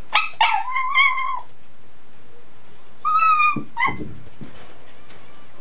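A stressed adolescent dog whining in its wire pen. It gives a long high whine right at the start, then a shorter one about three seconds in and a brief cry just after.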